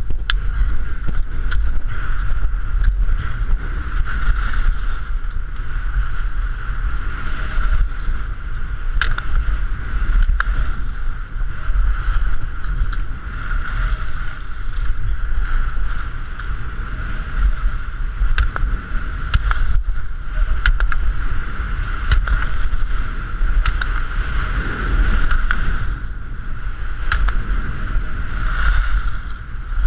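Skis running down a groomed slope in a slalom run, with heavy wind buffeting the helmet camera's microphone and a steady hiss of the skis on the snow. Sharp knocks come every few seconds.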